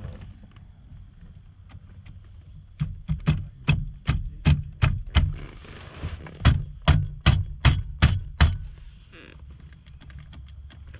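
A run of sharp metallic clicks, about three a second, in two bursts with a short pause between, from hand work on a steering-wheel hub and its nut and washer on the column.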